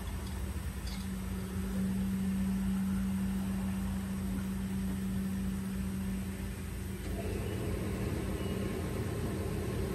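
A running engine with a steady hum over a low rumble; about seven seconds in it turns rougher and fuller.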